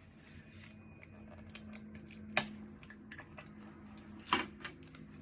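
Adhesive tape being handled and cut: scattered light crackles with two sharp clicks, the loudest about two and a half seconds in and another a little over four seconds in.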